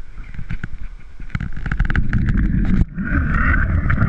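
Zip-line pulley running along a winch cable, a whir with rapid rattling that builds about a second in and is loudest near the end as the rider gains speed, with wind buffeting the microphone and rushing white water below.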